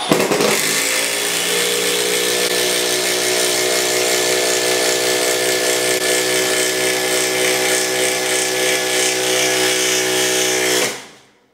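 Milwaukee 12-volt 1/4-inch impact driver driving a lag bolt home, running steadily for about eleven seconds and then stopping abruptly.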